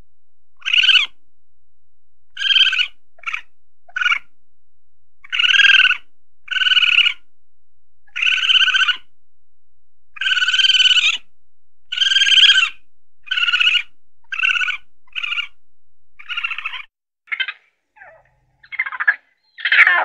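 Raccoon calling: a long series of short trilling calls, each under a second, repeated every second or so. About three-quarters of the way through, a different recording takes over with shorter, sparser calls.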